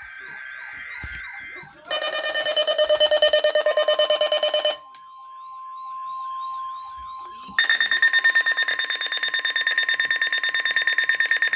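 Weather radio sounding a tornado-watch alert: a loud, rapidly pulsing buzzy alarm sounds twice, first for about three seconds and then again from about seven and a half seconds in, over a steady single warning tone. In between, a quieter sweeping tone repeats a few times a second.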